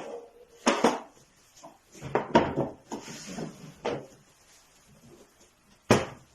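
A handful of irregular knocks and clatters, as of wooden pieces being handled and set down, the loudest about a second in, around two and a half seconds in, and near the end.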